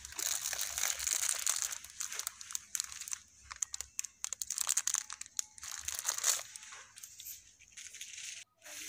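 Packaging crinkling and crackling as it is handled, in irregular bursts of sharp clicks, dying down for the last couple of seconds.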